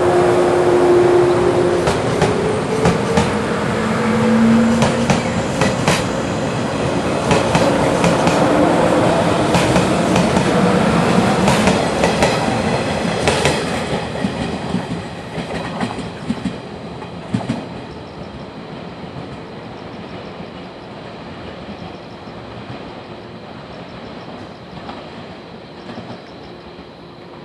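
Local electric multiple-unit train running past and pulling away, its wheels clicking over the rail joints with a motor whine rising in pitch as it speeds up. The sound fades steadily after the last car passes, about halfway through.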